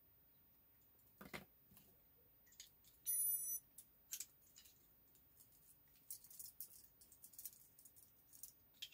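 A Tamagotchi Plus virtual pet gives one short electronic beep about three seconds in, after a soft knock. Later comes a run of small plastic clicks as the toy is handled and its buttons pressed.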